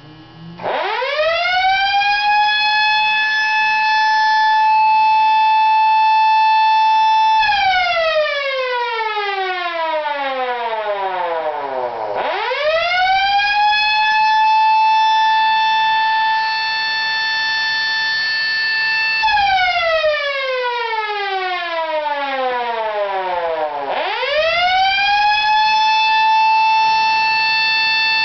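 Federal Model A electric siren run by a timer on its alarm cycle. It winds up to a steady high wail and holds it for about seven seconds, then winds down for about four seconds before it is switched back on and winds up again. It does this three times.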